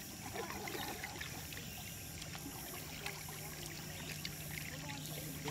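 Outdoor background noise with faint scattered chirps and a low steady hum that comes in about two seconds in.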